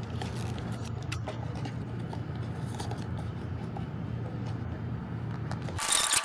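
A steady low hum with faint, scattered clicks and scrapes over it.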